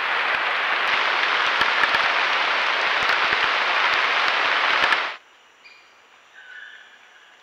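Steady rain hissing on forest foliage, with scattered drip ticks, cuts off abruptly about five seconds in. It gives way to quiet forest ambience with a few short bird calls.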